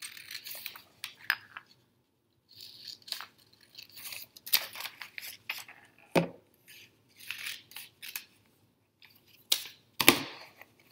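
Scissors snipping through glossy magazine paper, a run of short crisp cuts with the rustle of the page being turned and handled. Two sharper knocks stand out, one about six seconds in and the loudest near the end.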